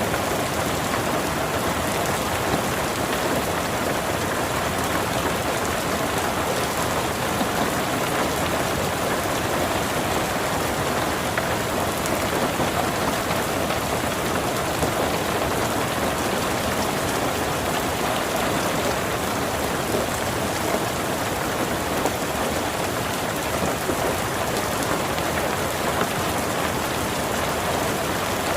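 Steady rain falling and pattering on surfaces, even and unbroken throughout.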